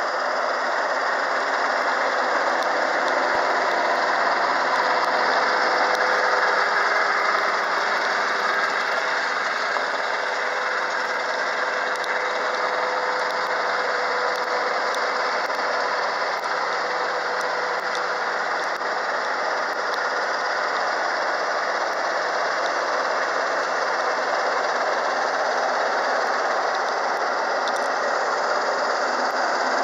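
Kubota GL530 tractor's diesel engine running steadily while driving a Kobashi FM156T flail mower through the field, engine and mower together making a dense, even noise.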